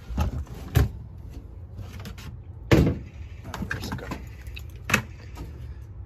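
Tools and plastic gear being handled and packed into a plastic bucket: scattered knocks and clunks, the loudest about three seconds in, with smaller clicks between, over a low steady rumble.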